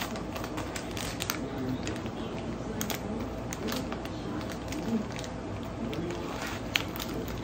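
Yellow padded paper mailer being handled and torn open: paper crinkling and tearing in scattered sharp crackles, with one louder snap near the end.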